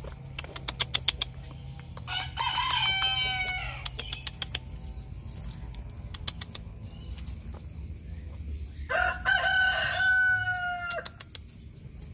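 A rooster crowing twice, about two seconds in and again about nine seconds in, the second crow a longer held note that dips at its end. A few sharp clicks come before the first crow.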